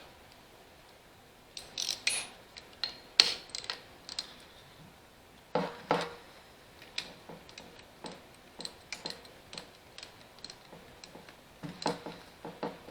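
Socket ratchet clicking in short runs, with sharp metal clinks, as bolts are run in with a 13 mm socket.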